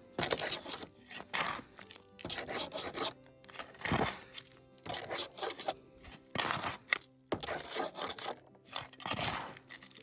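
Dirt and gravel scraped and crunched in repeated short strokes, about one or two a second, as a pick works through a pile of dug soil, over a faint steady hum.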